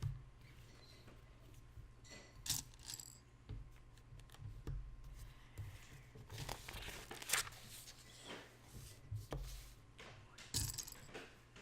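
Small plastic Lego pieces clicking and clinking as they are handled and fitted together, with bits of plastic rustling, at irregular intervals over a low steady hum.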